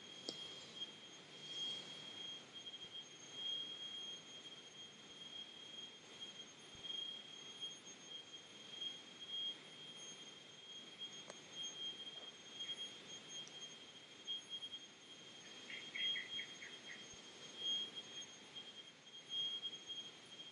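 Faint, steady high-pitched tone with a slightly pulsing texture, joined about three-quarters of the way through by a quick run of about five short chirps.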